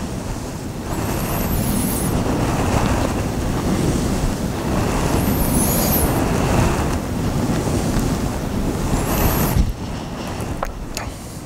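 Steady rushing, surf-like noise that swells and fades in slow surges about every four seconds, like waves washing in and drawing back.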